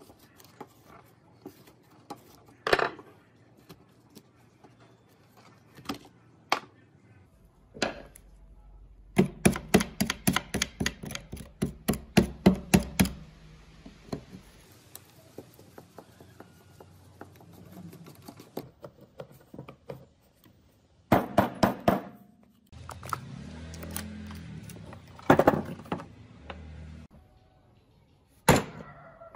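A hammer striking a long steel drift set inside a hammer drill's motor housing, knocking the stator loose: scattered single knocks, then a run of about a dozen quick blows near the middle and another cluster of blows later.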